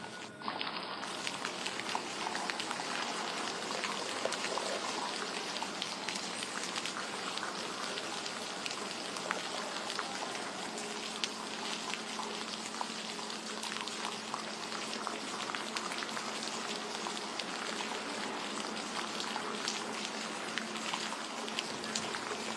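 Steady rain falling and pattering on surfaces, dense with scattered drop ticks. It comes in louder about half a second in.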